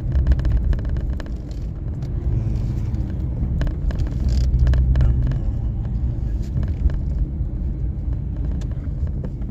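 Road noise inside a moving car's cabin: a steady low rumble of engine and tyres, swelling slightly about halfway through, with scattered small clicks and knocks.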